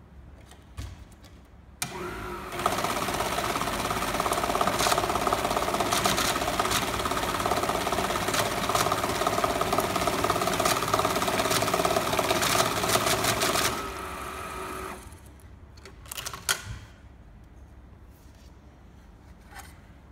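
LIDIX ML-2V banknote counting and sorting machine starting up and feeding a stack of notes through at high speed: a steady motor whir with rapid flicking of the notes, running for about twelve seconds and then spinning down. A few short clicks come before and after the run.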